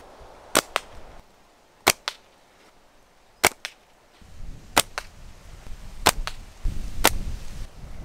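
Flat rubber bands of a slingshot snapping on release, six times about 1.3 seconds apart, each sharp snap followed a split second later by a fainter click. Wind rumbles on the microphone in the second half.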